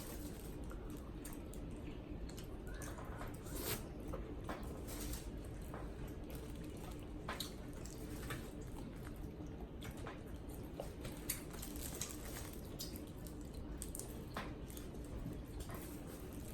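Eating a saucy shrimp boil: wet squishes and smacks of chewing and of fingers in sauce, with irregular small clicks and cracks as shell-on shrimp are handled and peeled.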